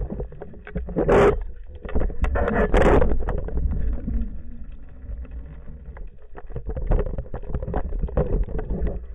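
Muffled underwater noise from a camera housing mounted on a speargun: water rumbling against the housing with many small clicks and knocks of handling, and two louder rushes about a second and about three seconds in.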